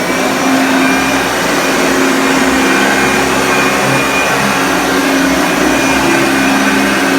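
1977 Hoover Junior Deluxe upright vacuum cleaner running steadily, a constant whooshing hum with a steady low tone; to the owner it sounds right and only needs a bit of grease.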